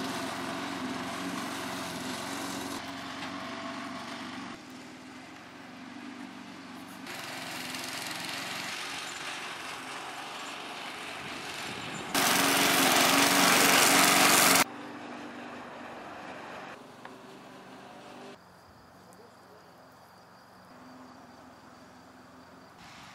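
An engine running steadily, heard in several abruptly cut stretches of changing loudness, loudest for a few seconds a little past the middle.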